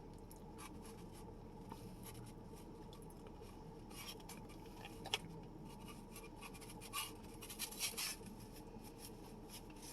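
Close-up eating sounds: faint chewing and crunching of broccoli, with scattered soft clicks and a few sharper ones in the second half.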